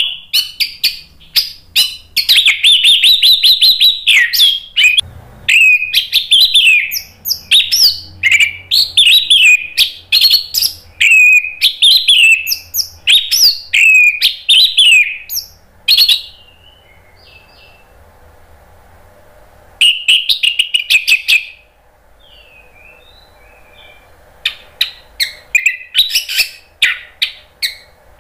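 Orange-headed thrush singing loudly in fast runs of varied whistled and chattering notes. Past the middle it breaks off twice for a few seconds, with only a few faint notes and a short burst between, then takes up the song again near the end.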